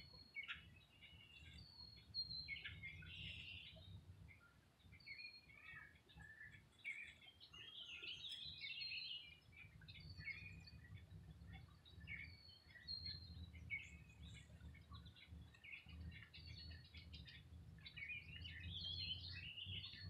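Faint songbirds singing and chirping, with short high whistled notes every second or two, over a low steady rumble.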